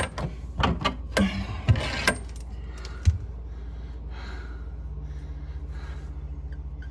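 A string of sharp knocks and clinks, a pipe being worked loose and handled under a sink, fading out after about three seconds. A steady low hum goes on underneath.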